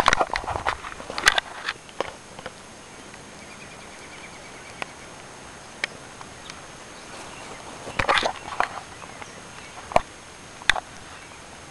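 Scattered scuffs, clicks and rustles on gravelly dirt, clustered at the start and again about eight seconds in, with single sharp ticks in between.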